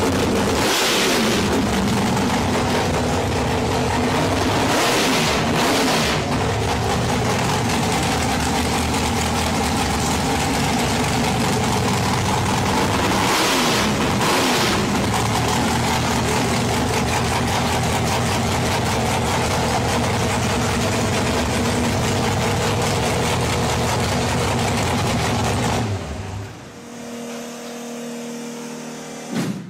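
Carbureted race V8 running at a rough, loud idle, revved by hand on the throttle linkage in three short blips. The engine sound drops away sharply near the end.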